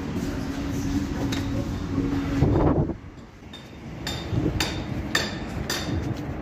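Background music that stops abruptly about three seconds in, just after a short loud rustle. Then a run of sharp clicking footsteps, about two a second, on hard pavement.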